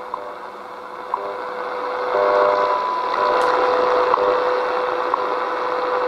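A shortwave time-signal broadcast on 10 MHz, WWV, heard through the Eton Elite Executive radio's speaker. It is a steady tone with a short tick each second over static hiss, and the signal grows stronger about two seconds in.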